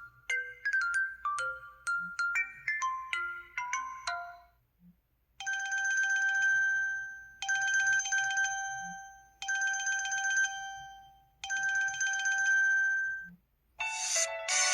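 LG-SU910 mobile phone ringtones: a quick melody of plinking notes ends, then after a short pause comes a repeated electronic ring, four identical two-tone rings about two seconds apart, each fading away. A busier new tune starts near the end.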